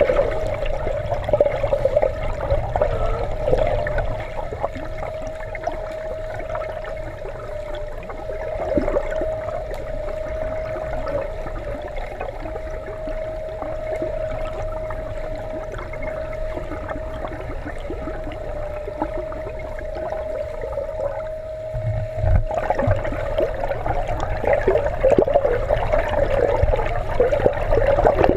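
Pool water heard from an underwater camera: muffled churning and bubbling from a swimmer's strokes and kicks, over a steady hum. The churning grows louder and busier in the last several seconds.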